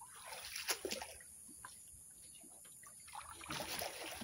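Floodwater sloshing and trickling around a small boat, with a few light knocks about a second in and a louder spell of splashing near the end.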